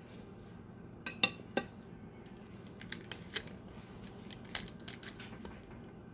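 Tableware and food being handled while eating: a handful of short, sharp clicks and clinks in small clusters, the loudest about a second in, over a faint room hum.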